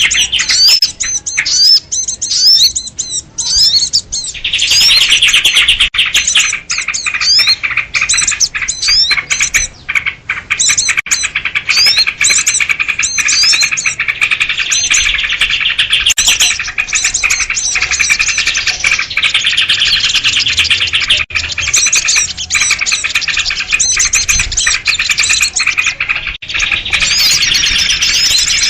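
Noisy mixed flock of small songbirds, sooty-headed bulbuls among them, chirping and chattering all at once in a dense, continuous chorus; the chorus thins briefly about a second in, then fills in again. This is a bird-lure call used to draw small birds in for trapping.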